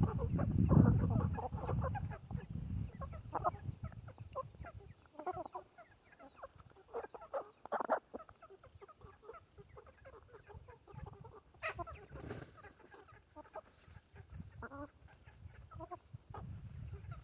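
Chickens clucking in short, scattered calls as they feed, with a low rumble in the first couple of seconds that fades out.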